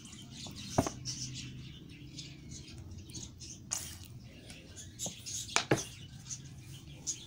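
A few sharp clicks and light taps against a ceramic mixing bowl as oil is poured in, the loudest about a second in and a pair close together near the end, over a low steady hum.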